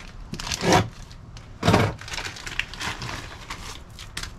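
Plastic packaging crinkling and tearing as a new chainsaw chain is unwrapped, with two loud rips, about a second apart, in the first two seconds.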